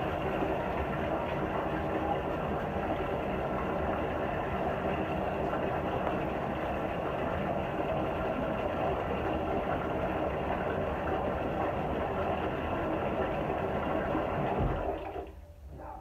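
Bathtub tap running and water splashing into the tub as wet clothes are wrung out by hand, a steady rush of water. About fifteen seconds in there is a low thump and the water sound stops.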